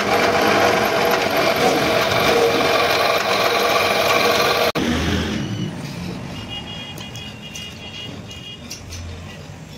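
Drill press running and drilling into a small steel part, a loud steady whir with a metallic whine. It cuts off suddenly about halfway, and a quieter stretch with intermittent high squeaks follows.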